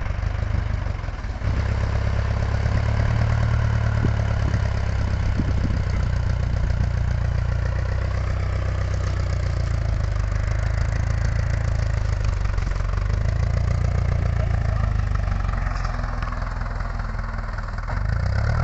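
Vintage tractor's diesel engine running flat out and labouring as it drags a three-furrow plough through the ground, a steady low pounding note that eases a little near the end.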